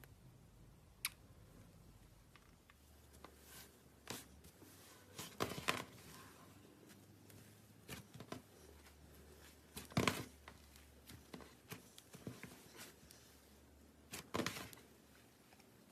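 Slime being handled: scattered small clicks and pops and short crackling bursts, with three louder bursts spread through.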